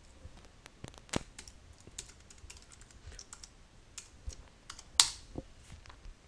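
Computer keyboard being typed on: separate, irregular key clicks, with one louder keystroke about five seconds in.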